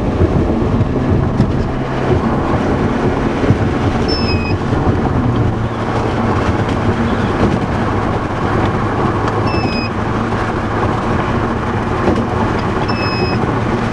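Steady vehicle road and engine noise inside a moving car's cabin. A short high beep sounds about every five seconds, three times, from a plugged-in power device warning that it isn't getting enough power.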